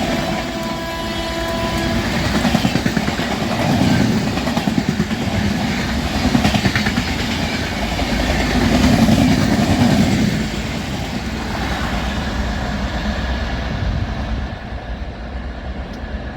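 Horn of a WCAM3 electric locomotive holding a steady note that cuts off about two seconds in, then the train's LHB coaches rushing past at speed, rumbling with repeated swells of wheel clatter on the rails. The rumble fades after about ten seconds as the train draws away.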